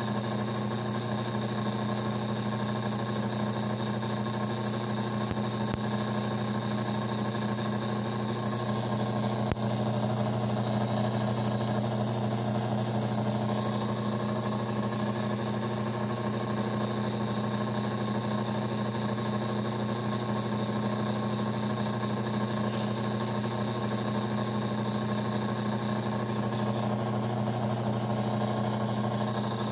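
Taig Micro Lathe II running steadily: an even motor hum with the spindle turning, holding one speed throughout.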